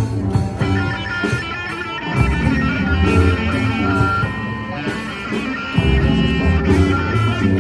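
A steel band playing: many steel pans struck with mallets, ringing melody and chord notes over repeated low notes from the bigger pans.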